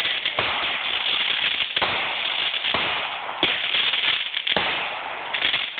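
Aerial fireworks going off: a dense, continuous crackle of bursting stars, broken by several sharper bangs, the loudest about three and a half seconds in.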